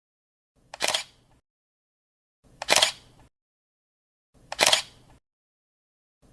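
Three short, sharp clicks about two seconds apart, each a faint tick followed at once by a louder snap, with dead silence between them.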